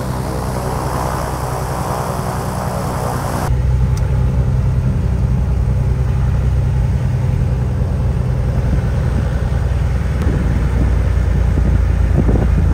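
1980 Piper Saratoga's six-cylinder Lycoming engine and propeller idling steadily and smoothly on its first run after a prop-strike repair, oil pressure up. About three and a half seconds in the sound changes abruptly, losing its hiss and turning deeper and louder.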